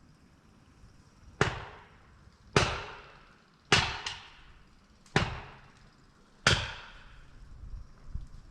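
Five sharp, heavy knocks about a second apart, each dying away briefly after it.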